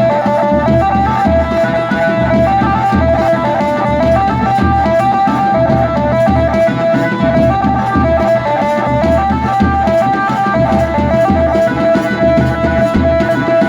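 Adivasi wedding band music: a lead melody moving in short steps over a steady, regular drum beat.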